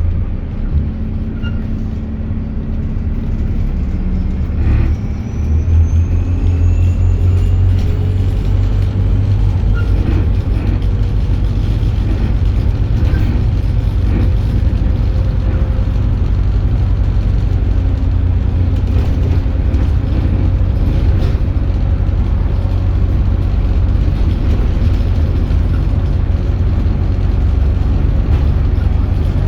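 Alexander Dennis Enviro400H hybrid double-decker bus running, with a steady low rumble and occasional knocks. About five seconds in, the electric drive's whine starts and rises in pitch as the bus gathers speed.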